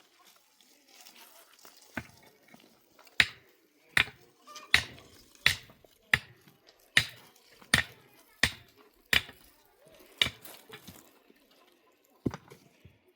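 A steady series of sharp chopping strikes, about one every three-quarters of a second for around eight seconds, then one last strike after a short pause.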